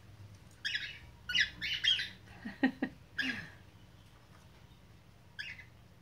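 Cockatiel giving a series of short, harsh squawks, clustered in the first three and a half seconds, then one more near the end.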